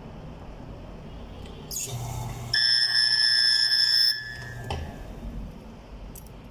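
A loud, steady electronic buzz held for about a second and a half, starting and stopping abruptly over a low hum, with a click as it begins and another as the hum ends.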